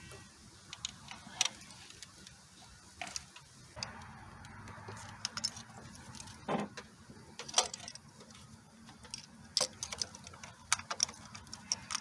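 Faint, irregular metallic clicks and clinks of hand tools and engine parts, as a spark plug is put back into the engine.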